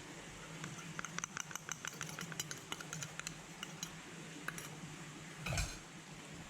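A quick run of light clicks and clinks, like small kitchen items being handled, followed by a single louder thump, over a steady low hum.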